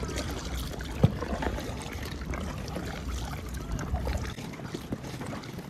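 Water lapping and trickling against the hull of a plastic sit-on-top kayak, with a low wind rumble on the microphone that drops away about four seconds in. A single knock about a second in.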